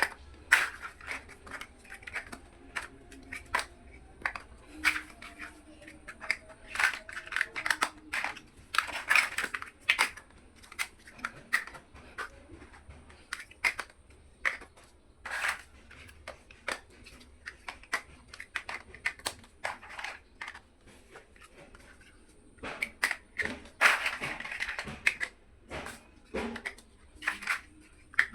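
Small plastic building bricks clicking and rattling as they are picked up, handled and pressed together, in irregular bursts of clicks.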